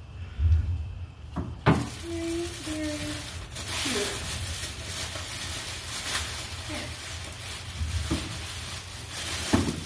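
Coloured sand pouring into a vase in a steady hiss, beginning after a knock about two seconds in.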